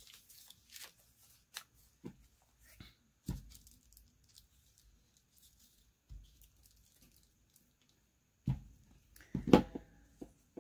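Paper being handled and torn in short rustling bursts, with a quiet stretch midway. Near the end come a few sharp, louder knocks of objects set down on the wooden table.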